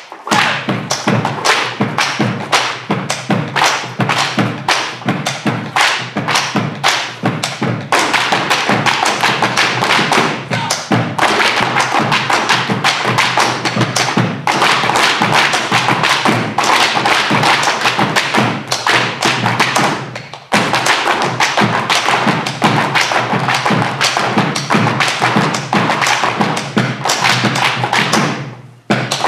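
Malambo zapateo: fast, driving stamping of boot heels and soles on a wooden stage, backed by bombo legüero drums. The stamping breaks off briefly a few times and starts again.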